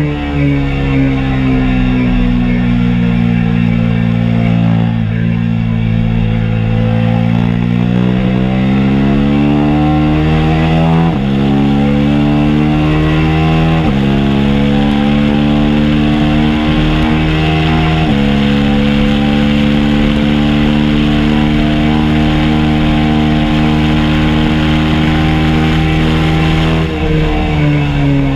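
2022 KTM RC 390's single-cylinder engine under hard acceleration. Its pitch climbs through the gears, with three quick upshifts at about 11, 14 and 18 seconds in. It then holds at high revs and drops off near the end as the throttle closes.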